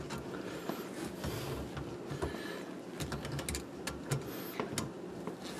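Light, irregular clicks and scrapes of metal locking pliers gripping and working the nut on a sink's water supply-line fitting.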